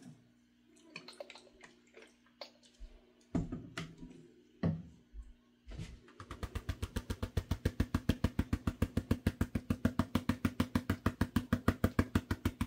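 A few light clicks and knocks, then from about halfway a fast, even swishing of several strokes a second: a hand stirring the water in a plastic wash tub to mix in Cascade dish detergent, which cuts the surface tension so fine gold sinks instead of floating.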